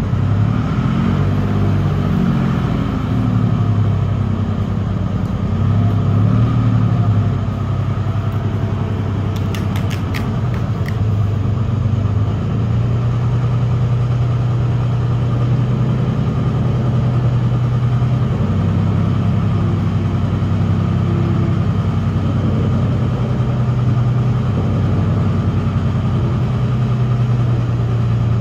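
Large forklift's engine running under load while carrying a heavy steam engine onto a trailer. Its speed rises and falls twice in the first several seconds, then holds steady. A few sharp clicks come about ten seconds in.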